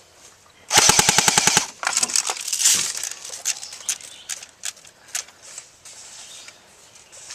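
Automatic airsoft rifle firing a rapid full-auto burst of about a second, followed by scattered single sharp snaps of shots and BB impacts.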